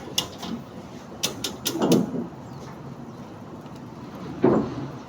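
A few sharp knocks or clicks, then two louder, duller thuds, about two seconds in and again about four and a half seconds in.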